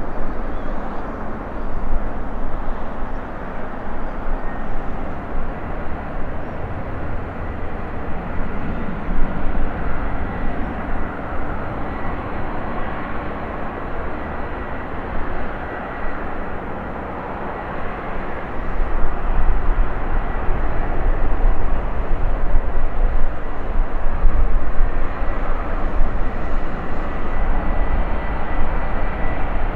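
Boeing 757 freighter's jet engines running, with a steady high whine over a broad roar. A deeper rumble comes in about two-thirds of the way through and stays.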